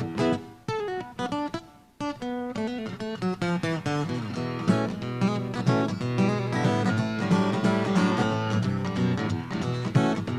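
Acoustic guitar instrumental break in a live song. Sparse picked notes fade almost to a stop about two seconds in, then fuller, busier picking and strumming picks up and carries on.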